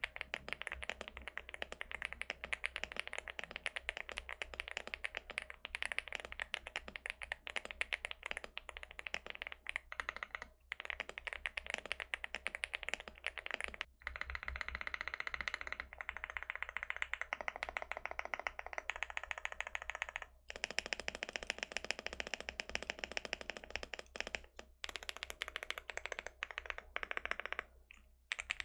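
Fast typing on a Leobog Hi8 75% full-aluminium mechanical keyboard in stock, unmodified form, with EF Grayish tactile switches and Cherry Blossom keycaps: a dense run of key clacks broken by a few brief pauses.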